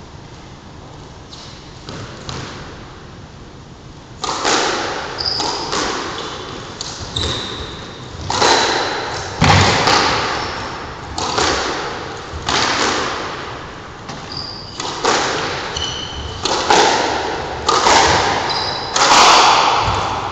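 Squash rally: the ball striking racquets and the court walls in quick succession, each hit ringing on in the enclosed court. Short high squeaks of shoes on the wooden floor come between the hits. The rally starts about four seconds in, after a few light taps.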